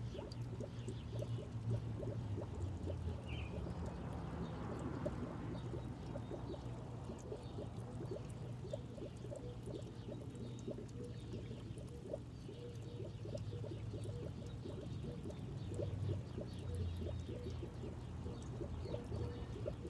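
Water steadily pouring and trickling into water, with a low steady hum underneath.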